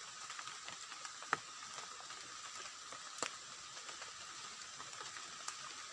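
Faint outdoor ambience at a spring-fed pool: a steady hiss of trickling water, with steady high-pitched tones and a few sharp clicks about a second, three seconds and five and a half seconds in.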